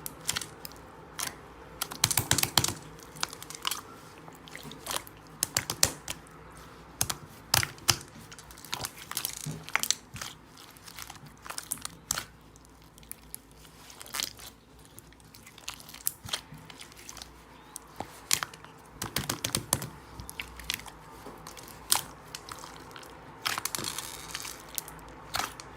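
Slime being squeezed and poked by hand, giving irregular sharp clicks and pops, at times in quick clusters, as air pockets in the slime burst.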